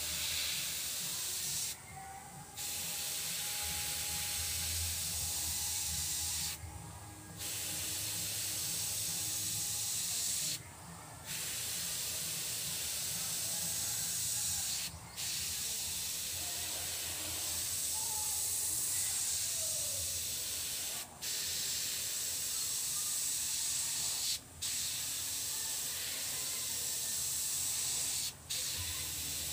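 Airbrush spraying paint: a steady hiss of air that stops for a moment about seven times, with a low hum underneath.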